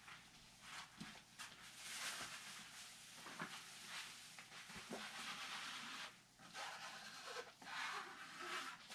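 Scratchy brushing and rustling in irregular spells, with a few light clicks: hand work on a wet carbon-fibre layup, working leftover epoxy resin into the cloth.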